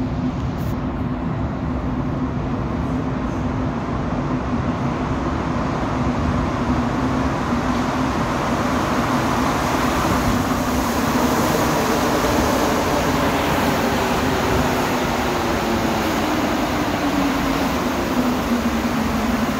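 Rubber-tyred Montreal Metro train arriving into the station from the tunnel. Its noise builds over the first half, and a steady hum slides lower in pitch as the train slows near the end.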